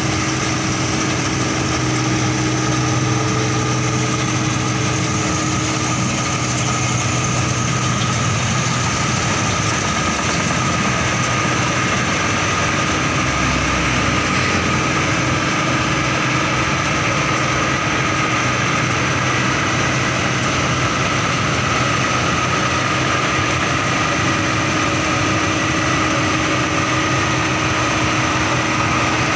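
New Holland 8060 combine harvester running steadily while it cuts and threshes rice: a constant engine and machinery hum with several steady tones in it.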